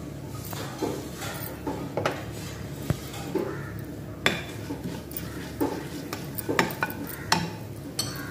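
Spatula stirring fennel seeds in oil in a nonstick kadai: irregular sharp taps, knocks and scrapes against the pan, over a low steady hum.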